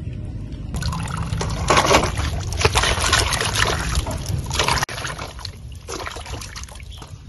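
Water splashing and sloshing in a metal basin as hands rub and turn mangoes in it to wash them. The splashing is loud and busy at first, then drops suddenly a little over halfway through to quieter, separate splashes.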